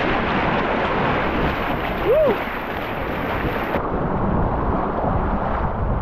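Loud, steady rush of whitewater as a canoe runs a big wave train in a high-water rapid. A brief rising-and-falling tone sounds about two seconds in.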